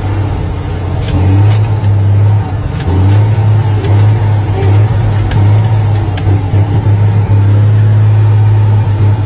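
Heavy diesel truck engine running under load, heard from inside the cab, with its steady low drone dipping briefly twice as the driver changes gear on the manual gearbox. Faint clicks and rattles come from the cab now and then.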